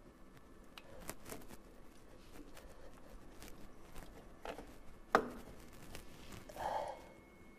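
Metal wrench clicking and clinking against the nut on the carburetor's mounting stud as it is loosened, with one sharp metal clank about five seconds in and a brief scrape shortly after.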